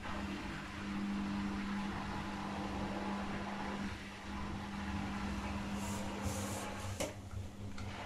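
Candy GrandO Plus GO4 1274 LH washing machine running with its drum turning an overloaded load of cottons: a steady motor hum, with a few short hisses around six seconds in and a sharp click about seven seconds in.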